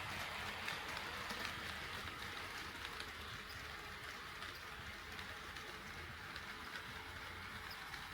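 HO-scale model train running on KATO Unitrack: a steady rolling hiss of wheels on rails, with a few light clicks near the start.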